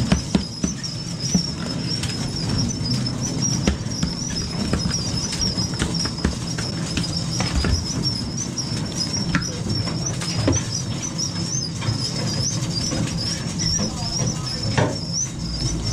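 Snapper being unhooked with pliers: scattered short clicks and knocks over a steady low drone, with a high wavering whistle running throughout.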